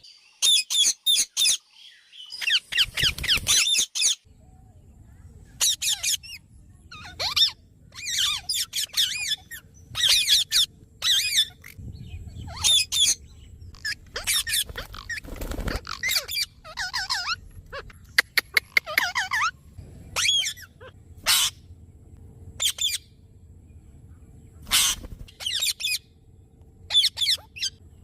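Parrots squawking: repeated short, shrill calls in bursts, some in quick strings of several notes, with short pauses between.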